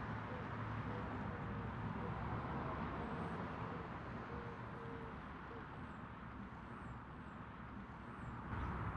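Steady, low rumbling outdoor ambient noise that slowly fades, swelling briefly near the end, with a few faint high chirps.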